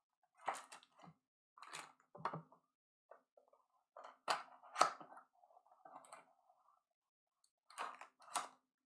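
Hands handling and opening trading card box packaging: scattered short clicks and taps with faint crinkling in between.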